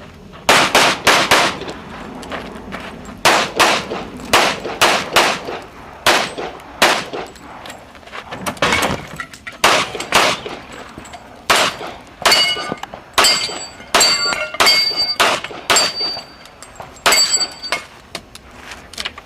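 A pistol fired rapidly in an action-shooting course of fire: about thirty shots in quick pairs and strings with short breaks while the shooter moves between positions. In the second half several shots are followed by a short metallic ring, steel targets being hit.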